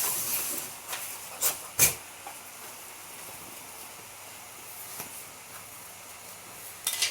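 Handling noise from unpacking bicycle parts: a brief rustle, then a few sharp knocks and clicks, the loudest just before two seconds in and another near the end, over a low steady hiss.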